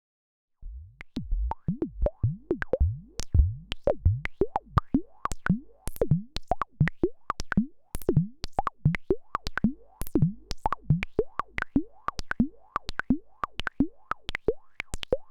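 Bastl Instruments SoftPop semi-modular analog synthesizer playing a fast sequence of short clicky blips, each sweeping up in pitch, over a low bass drone. It starts just under a second in, and the drone drops out near the end.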